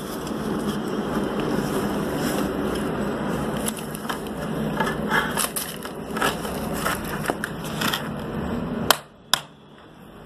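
Stone stair slab being shifted and bedded onto a sand-and-cement mortar bed: gritty scraping and crunching with scattered small clicks. It stops about nine seconds in, and two sharp knocks follow.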